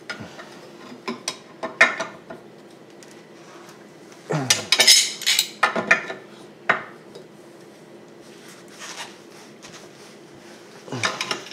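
A steel pipe wrench clanking and scraping on a brass compression fitting held in a vise, in a few short bursts of metal clatter as the wrench is reset and pulled to tighten the nut the extra turns past finger tight.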